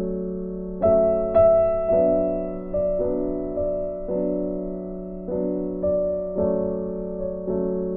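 Background music: a gentle piano melody, each note struck and fading before the next, roughly one note every half second to a second.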